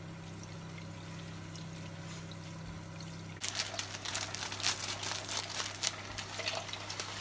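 Faint liquid swishing of melted butter being stirred in a saucepan over a steady low hum; then, from about three and a half seconds in, a plastic bag of sugar crinkling and rustling in quick irregular crackles as it is handled.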